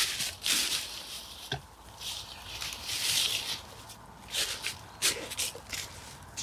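Footsteps crunching and rustling through dry fallen leaves, an uneven string of crunches with a longer rustle about three seconds in.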